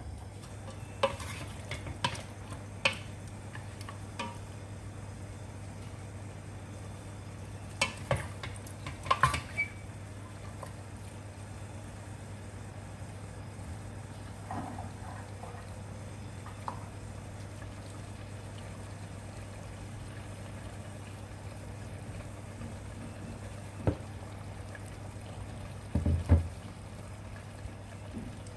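A cooking utensil clinking and scraping against a pan as chicken wings are stirred in simmering soy-sauce marinade. There are sharp clinks about once a second at first, a cluster about eight seconds in and a few more near the end, over a steady low hum.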